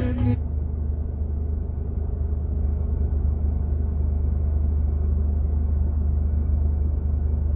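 Car engine of a 2016 Nissan Infiniti running, a steady low rumble.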